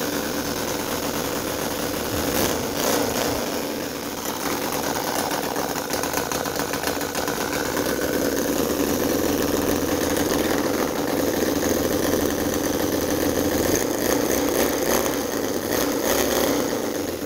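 A CISON FG-VT9 9cc model V-twin petrol engine running steadily at a low, even speed.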